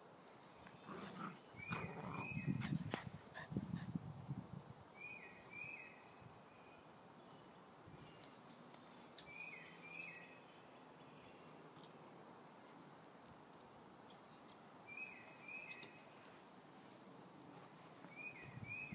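Puppies scuffling on grass, with rustling and a few knocks loudest in the first few seconds. Behind it a bird calls a repeated pair of short, high chirps every four seconds or so.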